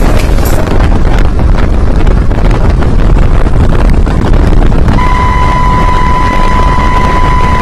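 Wind buffeting the microphone over a motorcycle's engine and tyres, riding steadily at about 60 km/h. About five seconds in, a steady high beep starts and holds for nearly three seconds.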